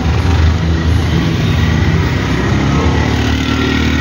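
Motor vehicle engines running in road traffic, a steady low engine drone. Near the end an engine note rises as a three-wheeler passes close by.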